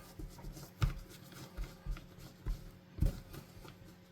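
Light, irregular taps and knocks of small plastic controller parts being handled and wiped clean, about five soft knocks with the loudest about three seconds in.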